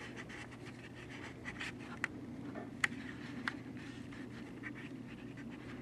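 Quiet room tone with a steady low hum, faint scratchy rustling and a few light clicks, the sharpest a little under three seconds in.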